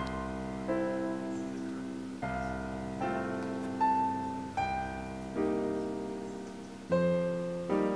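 Background piano music: slow chords struck roughly once a second, each ringing and fading before the next.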